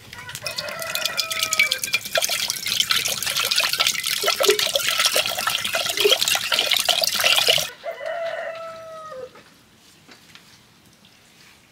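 Water poured from a plastic bottle into a hot metal pot on a wood fire, splashing and hissing on the hot metal, then stopping abruptly about eight seconds in. A rooster crows twice, once under the pour near the start and again just after the pour stops.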